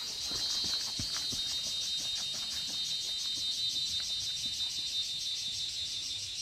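Insect chorus in the forest undergrowth: a high, rapidly pulsing chirr that holds steady throughout, with a few faint footfalls on the dirt path in the first couple of seconds.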